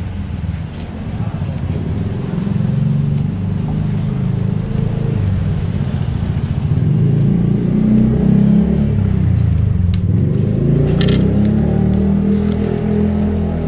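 Motor scooter engine running on the road with a heavy low rumble of engine and road noise, growing louder over the first few seconds and staying up.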